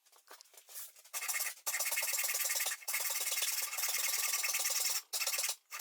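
Japanese pull saw cutting through beech by hand: a fine rasping of the teeth in long strokes, starting about a second in, with brief pauses between strokes.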